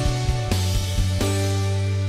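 Background music: a steady instrumental track with bass, guitar-like held notes and a regular drum beat.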